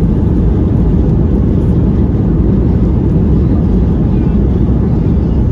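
Cabin noise of an Airbus A320-232 rolling out on the runway just after touchdown, ground spoilers raised: a loud, steady low rumble heard from a window seat over the wing.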